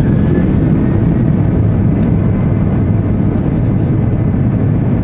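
Airbus A330-300 heard from inside the passenger cabin at the start of its takeoff roll: a loud, steady, deep engine and rolling noise as the jet accelerates down the runway, with a faint rising whine near the start.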